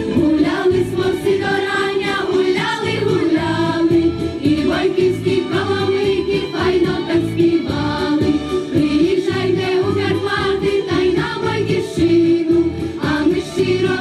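Girls' choir singing a song together over instrumental accompaniment with a low, pulsing rhythm.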